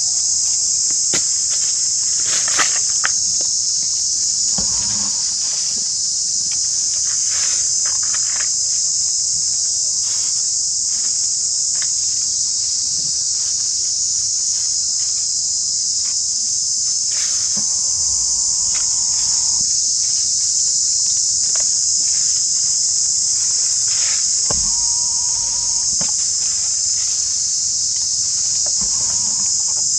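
Steady, high-pitched chorus of insects buzzing without a break, with a few soft rustles and clicks.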